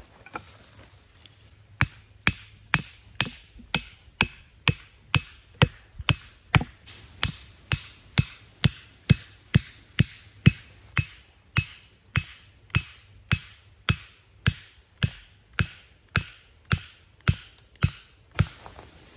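Wooden stakes being hammered into the ground with the back of a hatchet: steady blows about two a second, each with a short metallic ring, starting about two seconds in and stopping shortly before the end.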